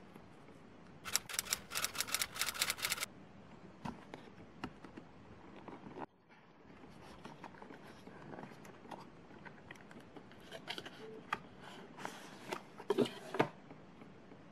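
Cardboard perfume box being handled and opened by hand: a couple of seconds of dense crinkling and rustling of packaging about a second in, then scattered taps and scrapes, and another burst of rustling near the end as the flaps are opened and the bottle is taken out.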